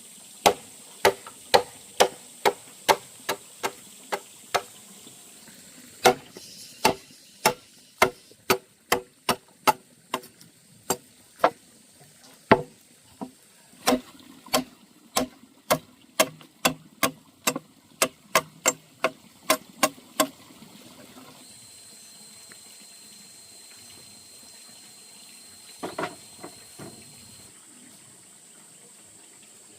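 A long series of sharp, evenly spaced strikes, about two a second, stopping about twenty seconds in. Afterwards a thin, steady high tone lasts several seconds, with a few soft knocks.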